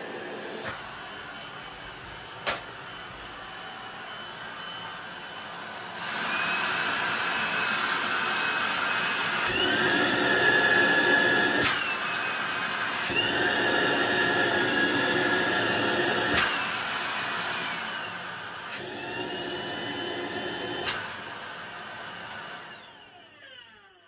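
Tineco Pure One S11 cordless vacuum motor running in handheld form, changing speed several times. Its steady whine jumps louder about six seconds in and rises in pitch to its highest around ten seconds. It drops back, rises again, steps down twice, then winds down near the end. Two sharp clicks come in the first few seconds.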